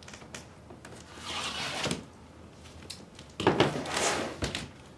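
Cardboard shipping box being opened by hand: flaps and packing scraping and rustling, with a louder burst of handling about three and a half seconds in.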